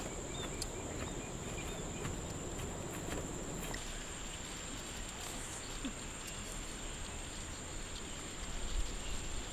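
An insect drones steadily with one thin, high-pitched tone, over a low outdoor background hiss.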